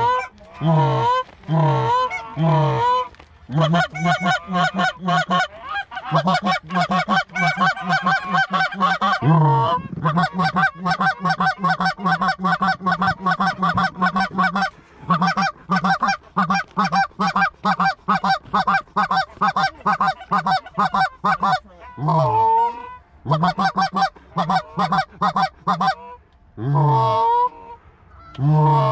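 Canada goose call blown by a hunter in the blind: a few honks about a second apart, then a long fast run of clucks and chatter, then spaced honks again from about 22 seconds in.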